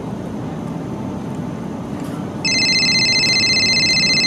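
A phone ringing with a high, rapidly trilling electronic ring. It starts a little past halfway, lasts about two seconds and stops abruptly, over a steady low background rumble.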